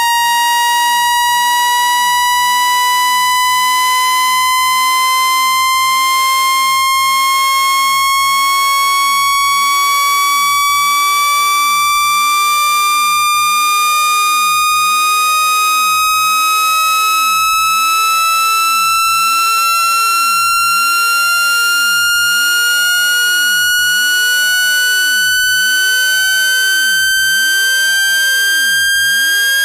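Electronic water-eject tone: a continuous pitched tone sliding slowly and evenly upward in pitch, with fainter overtones above it. It is played through a phone speaker to vibrate trapped water droplets out.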